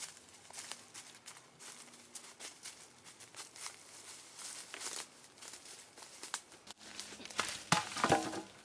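Dry leaves and dead branches rustling and crackling as someone moves through undergrowth gathering firewood. A louder run of snapping and crackling comes near the end.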